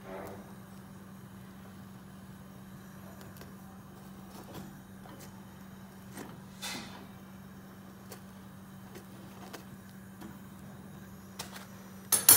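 A phulka being puffed over an open gas burner: faint clicks of steel tongs turning the bread against a steady low hum, then a sharp metallic clatter of the tongs and plate near the end.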